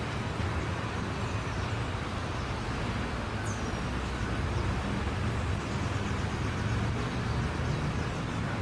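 Steady background rumble and hiss, with one faint, high, falling chirp about three and a half seconds in.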